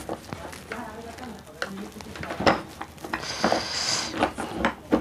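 Metal tools clicking, knocking and scraping against a small RO booster pump motor's housing as it is pried apart. The loudest knock is about halfway through, followed by a brief rasping scrape.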